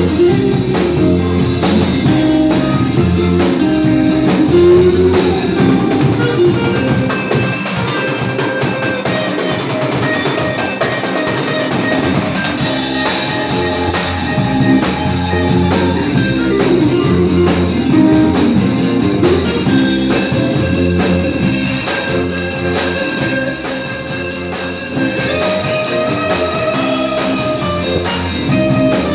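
A rock band playing through a song at rehearsal, with drum kit and guitar. About six seconds in, the cymbals and the deepest low end drop out for several seconds, then the full band comes back in.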